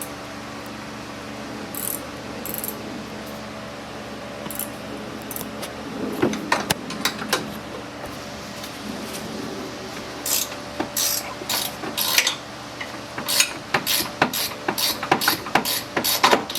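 Hand ratchet wrench clicking as a 15 mm bolt is worked: a few scattered clicks at first, then a quick run of clicks, about three or four a second, from about ten seconds in.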